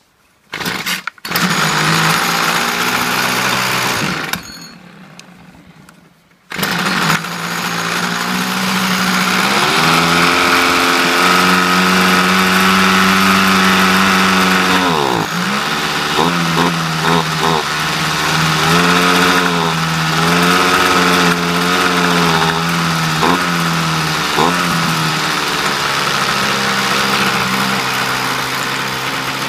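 Ryobi RBC3046YE petrol strimmer's two-stroke engine being pull-started: after a couple of short pulls it fires, runs for about three seconds and dies, then starts again and keeps running. Its speed sags sharply once about halfway through, then rises and falls several times before settling to a steady idle.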